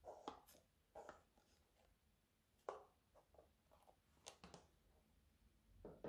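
Faint sticky clicks and squelches of thick green slime being stretched and squeezed by hand, about half a dozen soft pops scattered over a quiet background.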